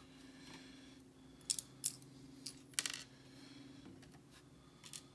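Small metal lock pins being handled and dropped out of a pin-tumbler lock's core onto a hard surface: a handful of sharp, light metallic clicks in the middle, over a faint steady hum.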